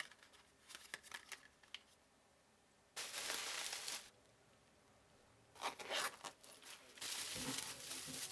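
Bubble wrap and plastic packaging crinkling and rustling as an item is unwrapped by hand, in several short bouts with quiet gaps between.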